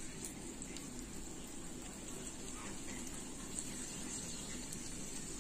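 Gujiya pastries frying in hot desi ghee in a pan: a steady soft sizzle with scattered small crackles.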